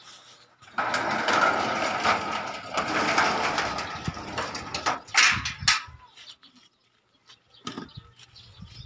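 Metal sliding gate rolling along its track on its wheels: a steady, rough grinding rumble for about five seconds. Several clanks come around five seconds in, and there is one softer knock near the end.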